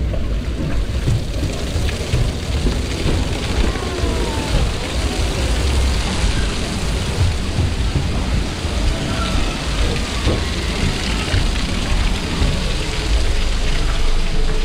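Water rushing and spraying in a steady loud rush with low rumbling, typical of riding down a water slide.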